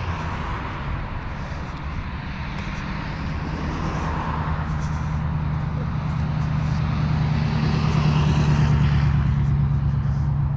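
Road traffic going by: a pickup truck's engine and tyre noise comes up over a steady low drone and is loudest about eight to nine seconds in, then fades as it passes.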